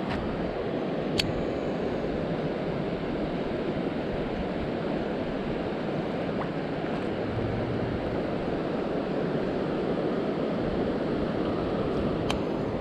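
Steady rushing outdoor noise with no clear pitch, with a sharp click about a second in and another near the end.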